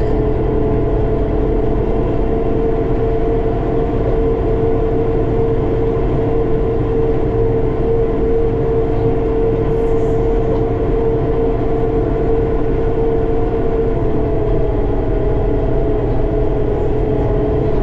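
Armatrac 1104 Lux tractor's diesel engine running steadily under load, with a constant high whine over the engine's low rumble.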